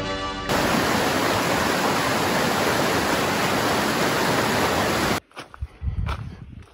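Rushing water of a fast-flowing mountain creek running over rocks, a steady loud noise that cuts off suddenly about five seconds in. After it come a few soft footsteps on a dirt track.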